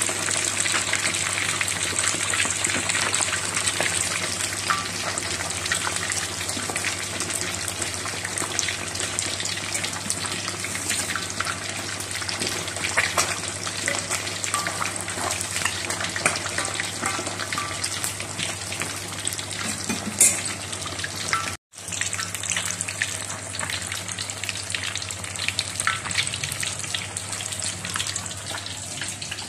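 Whole tilapia frying in hot oil in an aluminium wok: steady sizzling with many small crackling pops. It cuts out for a moment about two-thirds through.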